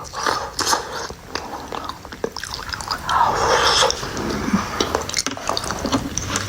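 A person chewing and biting food close to the microphone, with many small clicks and mouth noises and a louder rush of noise about three seconds in.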